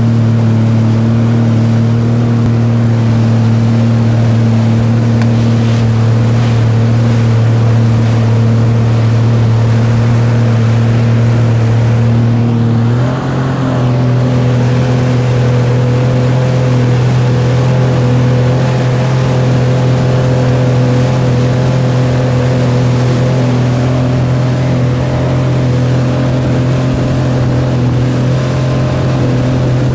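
Speedboat engine running steadily under way, with the rush of wind and water over it. About halfway through, the engine's pitch steps up slightly and then holds.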